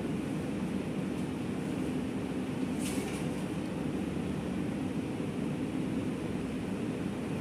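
Steady low rumbling room noise of a small performance hall, with one brief hissing rustle about three seconds in.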